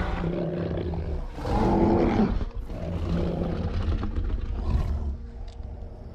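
Kong, the film's giant ape, growling: a deep rumbling growl that swells to its loudest about one and a half to two and a half seconds in, then eases and carries on until about five seconds in.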